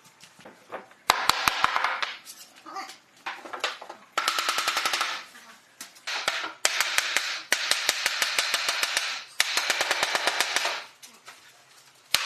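A power tool running in five short bursts of rapid, evenly spaced knocks, each burst about a second long, with short pauses between them.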